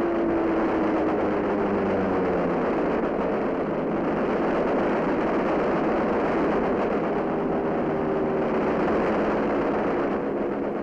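Steady roar of aircraft engines in flight, a dense unbroken noise with a drone that sinks slightly in pitch over the first couple of seconds.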